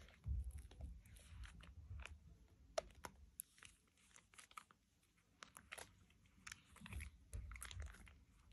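Thick soap lather squeezed and worked by hand over a bowl of soapy water: quiet squelches and a scattered crackle of tiny popping bubbles.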